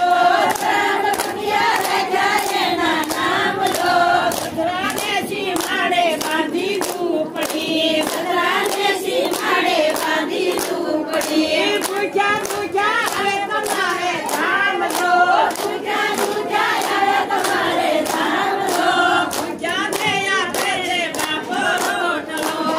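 A group of women singing a devotional bhajan together in chorus, keeping time with hand claps in a steady rhythm.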